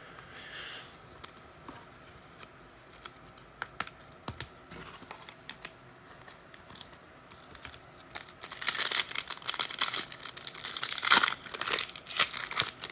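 Light clicks of cards being handled, then, about eight seconds in, a louder stretch of a trading-card pack wrapper being torn open and crinkled.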